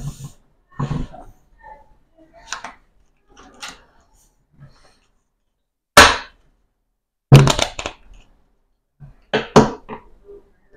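Playing cards being handled on a tabletop: short, scattered slaps and rustles as cards are laid down, picked up and squared, the loudest about six seconds in and again around seven and a half seconds.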